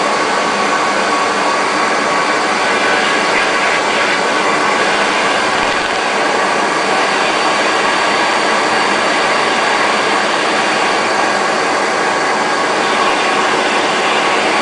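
Vacuum cleaner running steadily: a constant rushing noise with a faint steady whine in it.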